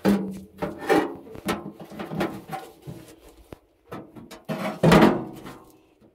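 Thin aluminium boat hull being handled and set down onto a wooden trestle: a series of irregular knocks, bumps and scrapes, some with a brief ring, the loudest about five seconds in.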